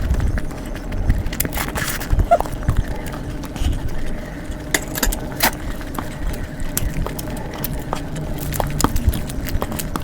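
A person eating close to the microphone: many irregular sharp clicks and smacks of chewing and mouth sounds.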